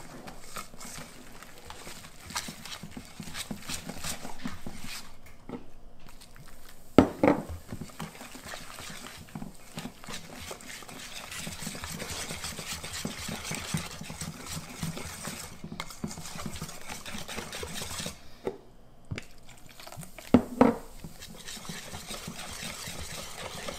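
Beer batter being stirred briskly in a mixing bowl, the utensil clicking rapidly against the bowl. There are two louder, ringing clanks against the bowl, about seven seconds in and near the end.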